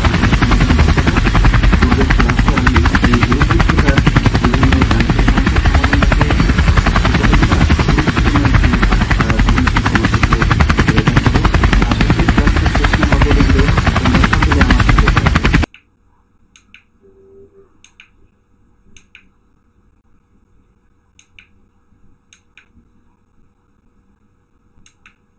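Helicopter sound effect: a loud, steady, rapid rotor chop that cuts off abruptly about 15 seconds in. A few faint clicks follow.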